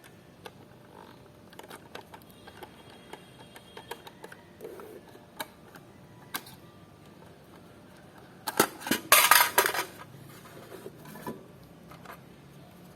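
Small hard objects being handled: scattered light clicks and taps, then a loud rattling clatter lasting about a second and a half, a little past the middle.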